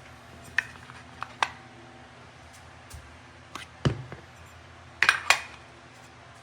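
Scattered light clicks and knocks of small hard objects being handled, with a duller thump a little under four seconds in and a quick cluster of sharper clicks about five seconds in, over a steady low hum.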